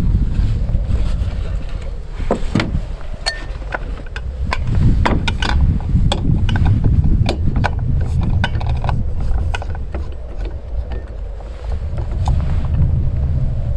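Wind rumbling on the microphone, rising and falling, under scattered clicks and clinks as small metal and glass camping gear is handled and set down on a pickup truck's tailgate.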